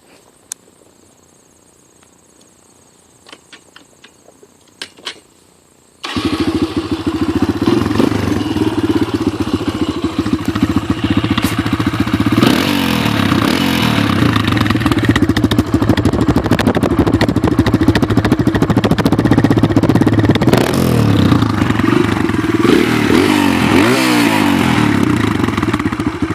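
Kawasaki KLX140 dirt bike's single-cylinder four-stroke engine through its stock exhaust. After a few light clicks it starts suddenly about six seconds in and runs loudly, with a few throttle blips rising and falling in pitch near the end.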